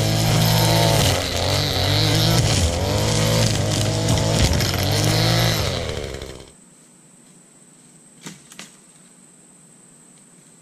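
Gas string trimmer engine running and revving up and down as it cuts grass and weeds, then cutting off abruptly about six and a half seconds in. After it stops, two short knocks are heard.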